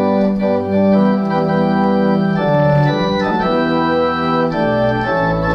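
Organ music playing sustained chords that change every second or so.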